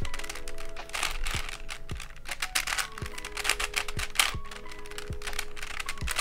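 Plastic layers of an AiYi 5x5x4 cuboid puzzle clicking and clacking as they are turned in quick succession by hand, over background music with a steady beat.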